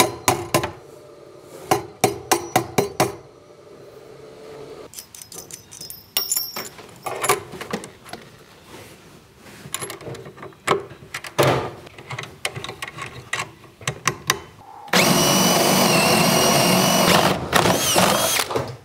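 Hammer striking nails into a metal electrical box mounted on a wooden stud, in a quick run of blows at first and then scattered taps. About fifteen seconds in, a cordless drill runs steadily for about two and a half seconds and then stops.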